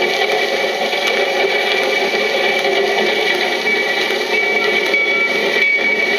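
Recorded train sound effects played back from a 78 rpm record: a steady running-train noise with a thin high tone held through it, growing a little stronger near the end.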